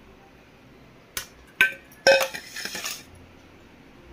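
Stainless steel vessel clanking as it is knocked and lifted off a steamed pudding turned out of it: a couple of sharp metallic knocks about a second in, then a louder, ringing clatter about two seconds in.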